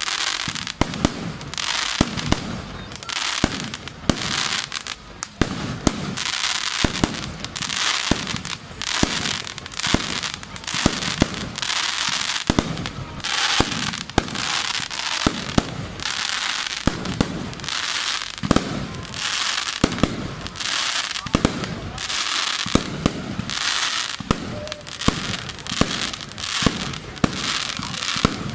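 Fireworks display: a steady run of sharp bangs from bursting shells, one or two a second, with stretches of dense crackling between them.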